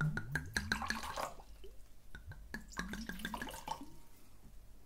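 Wine being poured from a bottle into a glass, in two spells about a second apart.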